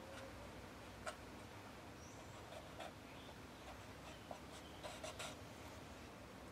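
Faint scratching and light ticks of a thin wooden stick drawn along a plywood deck, scribing lines of stain, with a few sharper ticks about a second in and around five seconds.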